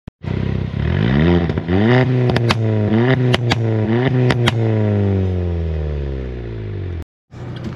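Volkswagen Polo GT TSI with an aftermarket Remus exhaust being revved while standing still: the engine note rises and falls through several quick blips, with sharp pops from the exhaust. The revs then sink slowly back down.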